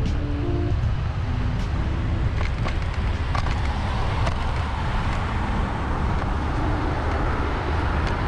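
Steady low rumble of wind and road noise recorded while riding a bicycle among city traffic, with a few faint tuneful notes in the first two seconds.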